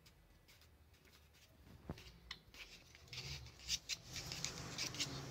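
Faint plastic rubbing and clicking as the tweeter is unscrewed by hand from the centre of a 6.5-inch Oncore C65 coaxial car speaker. There is a single click about two seconds in, then a steady scratchy rubbing of the threads.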